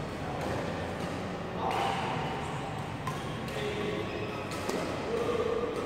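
Badminton rackets striking a shuttlecock in a doubles rally: a few sharp knocks a second or more apart, echoing in a large hall.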